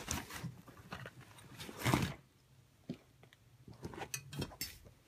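Handling noises as a rifle is taken from a soft rifle case and set down on packing foam: a burst of rustling about two seconds in, then a few quieter clicks and rustles.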